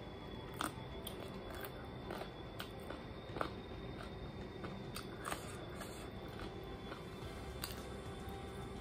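Close-up eating sounds: chewing and biting into a piece of chicken, with several sharp crunchy clicks scattered through, over a faint steady hum.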